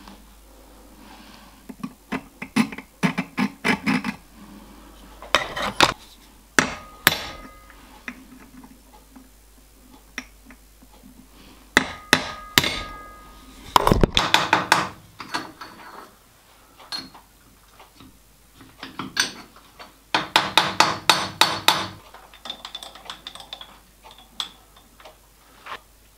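Light taps of a small hammer on a steel workpiece held in a lathe's four-jaw chuck, coming in quick clusters of several taps with pauses between: the work being nudged true in the chuck.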